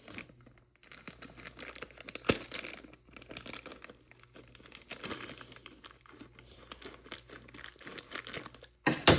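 Plastic mystery-pack packaging crinkling as it is cut open with scissors, in irregular rustles and snips, with a sharp click a little over two seconds in and a louder crackle near the end.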